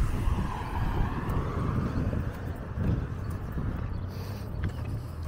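A car passing on the road, over a steady low rumble of traffic and outdoor noise.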